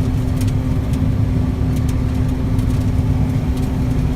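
Combine harvester running at a steady working speed: a constant low engine rumble with a steady hum.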